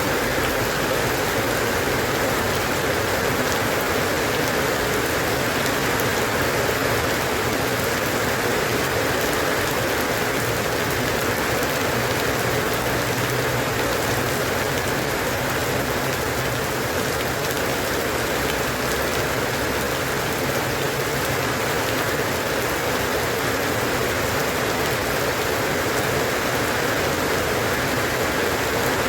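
Steady, even rainfall, drops pattering on a surface.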